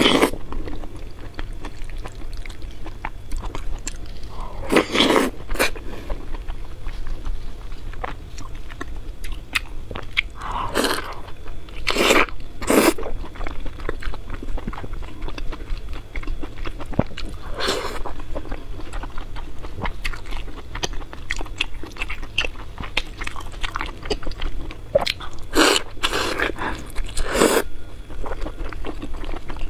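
Close-miked eating: a person chewing and biting food, with a short loud mouth noise every few seconds.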